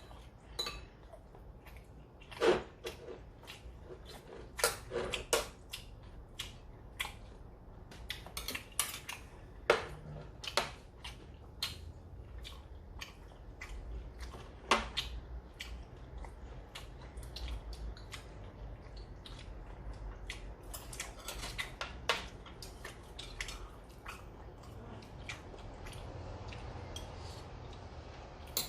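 Eating utensils clinking and tapping against plates and bowls during a meal: irregular sharp clicks, with a few louder knocks scattered through.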